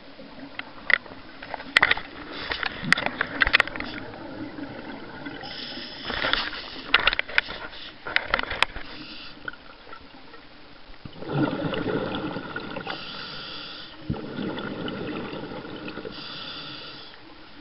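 Scuba regulator breathing heard underwater through the camera housing: hissing inhalations alternate with longer bubbling exhalations in a slow cycle, the clearest from about eleven seconds in. Scattered sharp clicks and knocks sound in the first half.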